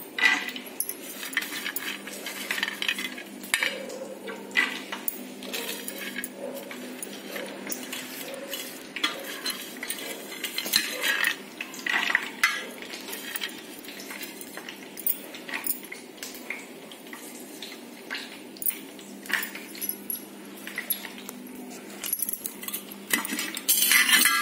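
Raw peanuts being picked off a steel plate and dropped into a pan for roasting: irregular light clinks and taps on metal, over a steady low hum.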